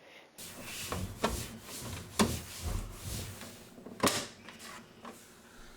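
Plastic lamp-compartment covers of a rear-projection TV being handled and fitted back in place: rubbing and scraping with a few sharp clicks and knocks.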